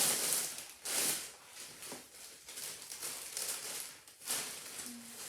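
Plastic mailer bag rustling and crinkling in the hands as it is opened, in several bursts, the loudest at the start and about a second in.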